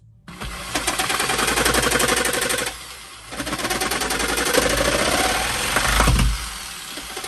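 Power cutting tool running in two bursts of rapid strokes, nibbling away material to clear room for a screw; partway through the second run its pitch rises.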